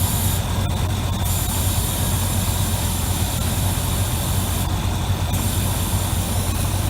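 Chevrolet 454 big-block V8 idling steadily, with its engine fan running, and a hiss above it that shifts in level a few times.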